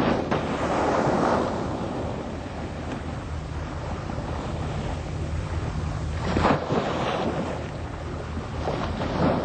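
Wind buffeting the microphone over open-water wash, with a steady low hum underneath like a boat's engine. The rushing noise swells about a second in and again past six seconds.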